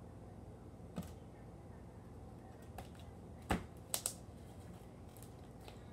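Blue slime that is clicky being stretched and handled, giving a handful of sharp clicks and pops, the loudest about three and a half seconds in.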